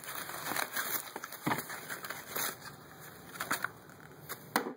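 Plastic wrap and paper packaging rustling and crinkling as they are handled, with a few sharper crackles, one near the end.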